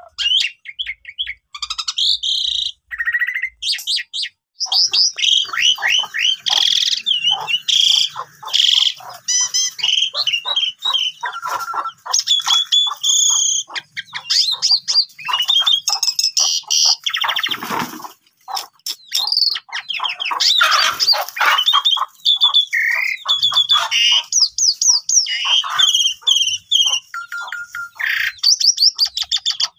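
Jalak suren (pied starling) singing hard and continuously: a long, varied run of whistles, quick trills and chattering, with harsh rasping notes around the middle.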